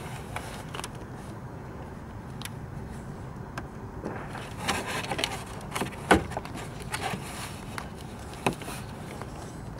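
Scattered clicks, knocks and rustles of a hand groping among plastic parts behind a car's lower front grille, the sharpest knock about six seconds in, over a steady low hum.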